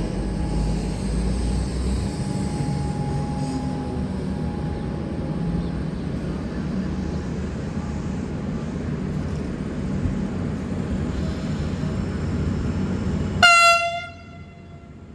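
V/Line VLocity diesel multiple unit VL42 running, a steady rumble of engine and wheels. Near the end comes one short, loud horn blast, a friendly toot from the drivers, after which the rumble drops away suddenly.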